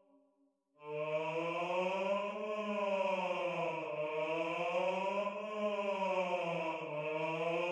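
Choir basses humming on 'Mmm' in a slow wavering line, the pitch rising and falling over a few seconds at a time, coming in about a second in after a brief silence.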